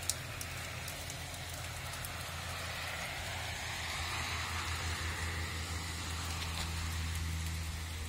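Rain falling on leaves and ground, a steady hiss that swells a little mid-way, with a few sharp drip ticks near the start. Underneath runs a low, steady engine-like hum that stops near the end.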